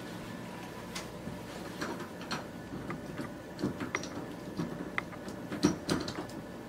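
Small metal clicks and rattles from a door's knob lock being worked by hand, an irregular run of light ticks with the loudest cluster about two-thirds of the way through.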